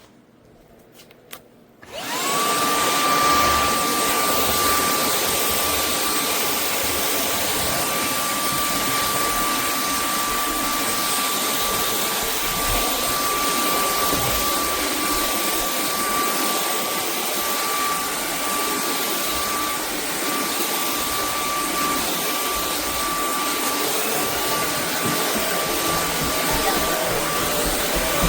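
Shark Clean & Empty cordless vacuum's motor starting about two seconds in: a quick rising whine as it spins up, then steady running, with rushing air and a high whine held level. A couple of faint clicks come just before it starts.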